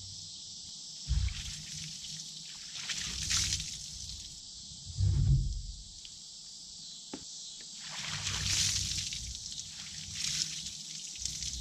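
Water sprayed onto freshly sawn boards in several short hissing bursts, with a couple of dull thumps as the boards are handled.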